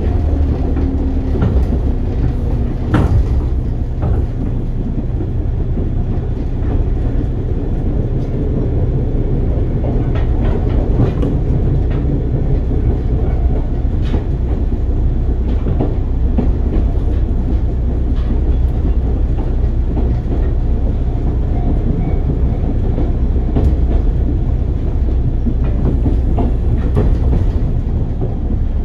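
JR West 103 series electric train running, heard from inside a MoHa 102 motor car: a steady low rumble of wheels on rail with sharp clacks now and then from the rail joints.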